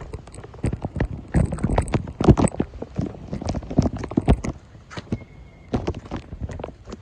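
Footsteps on a wet paved path: irregular steps and scuffs close to the microphone, thinning out near the end.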